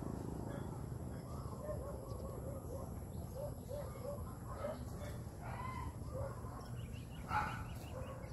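Birds calling outdoors in many short, repeated chirps, with one louder call about seven seconds in, over a steady low rumble.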